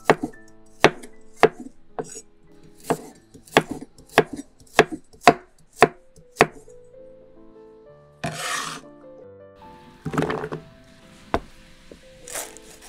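Chef's knife slicing a carrot into rounds on a wooden cutting board: a regular series of sharp knocks about every half second, stopping after some six seconds, then two brief scraping sounds and a single knock.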